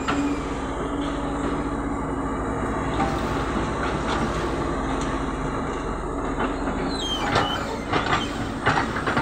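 Caterpillar hydraulic excavator's diesel engine running with a steady hum as it swings and dumps a bucket of soil, then a run of clanks, scrapes and a short metallic squeal near the end as the bucket digs back into the dirt.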